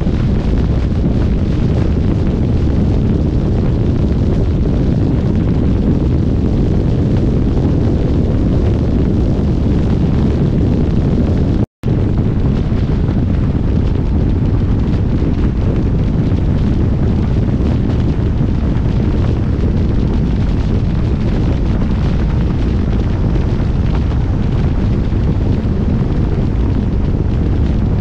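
Wind buffeting the microphone: a loud, steady low rumble, broken by a split-second gap about twelve seconds in.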